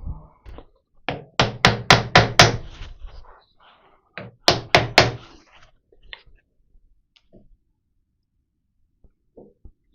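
Sharp knocks of a part being tapped into place on a milling machine's leadscrew handwheel assembly: a quick run of about six blows, then a second run of about four a couple of seconds later, with a few faint ticks after.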